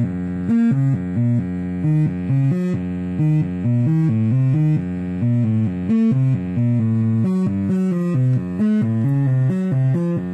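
Sine-wave notes from an NLC modular step sequencer, driven through a breadboard op-amp Big Muff distortion circuit into a buzzy, harmonic-rich tone. The pitch steps from note to note about three times a second in a repeating, shifting melodic pattern.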